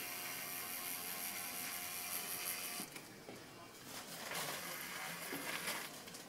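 Electric tattoo machine running steadily while the needle works ink into skin, easing off for about a second around three seconds in.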